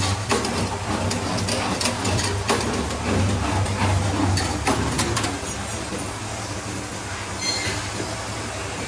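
CNC servo automatic stirrup bending machine running on 6 mm steel bar: a steady motor hum with irregular metallic clicks and clacks as the bar is fed, bent and cut. The clatter eases off about five and a half seconds in.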